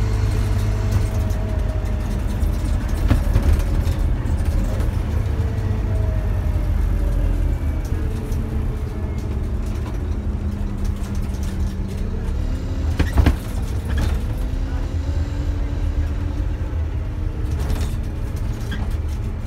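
Scania N230UD double-decker's DC9 diesel engine and ZF automatic gearbox heard from inside the saloon on the move: a low drone with whining tones that slowly fall, then climb again as the bus picks up speed. A sharp knock about 13 seconds in.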